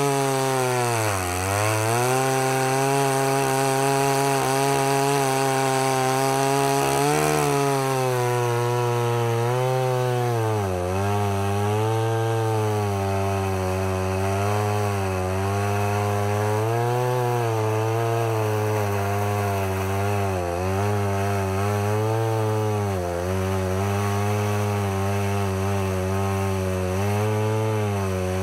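Powerful two-stroke chainsaw with an extra-long bar ripping lengthwise through a hardwood log along a guide rail, running steadily under full load on a worn chain whose teeth are filed down to their minimum. The engine note sags briefly every few seconds as the saw loads up in the cut.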